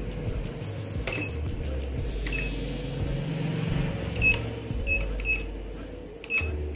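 ATM keypad beeping as buttons are pressed: about six short, high beeps at uneven intervals, over a steady low hum.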